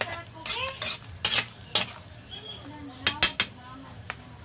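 A metal ladle stirring in a pan of fish soup, clinking sharply against the pan about six times.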